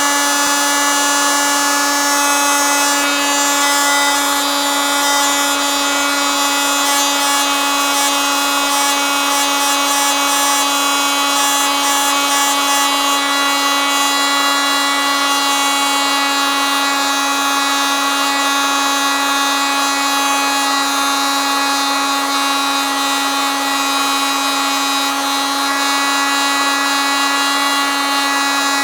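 Electric oscillating multitool running steadily, a loud buzz held at one constant pitch without let-up.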